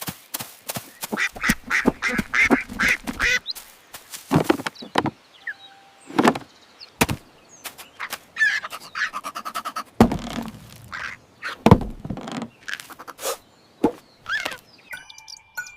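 Cartoon duck quacking, mixed with a run of sharp knocks and thuds.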